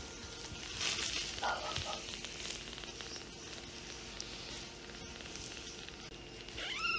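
Tiny kitten purring while a hand strokes it, with the crackly rustle of fingers in its fur and on the cloth beneath it, and a short rising-and-falling mew near the end.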